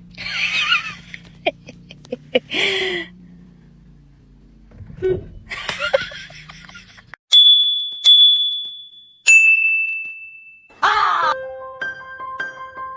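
A few short cries or calls, then three clear bell-like dings about a second apart, the third lower and longer, followed by a short tune of held notes.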